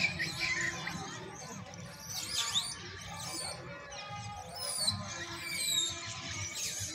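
Birds chirping and whistling in quick rising and falling calls, over a steady low rumble.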